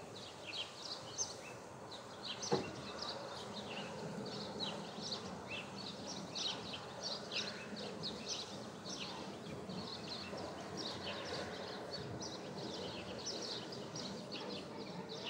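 Quiet ambience of a seated congregation in a large room: a low, even murmur with many short high chirps, several a second, and a single sharp knock about two and a half seconds in.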